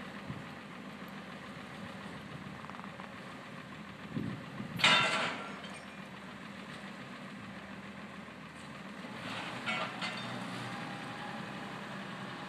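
Wheel loader's diesel engine idling steadily, with one loud, short, sharp noise about five seconds in and the engine note rising slightly around nine to ten seconds.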